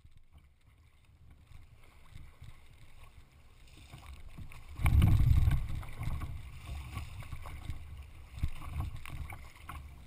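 Flatwater racing kayak paddled through chop: water splashing and washing around the hull and paddle, with a low rumble on the deck-mounted action camera's microphone. It swells into a loud burst about five seconds in, then settles back.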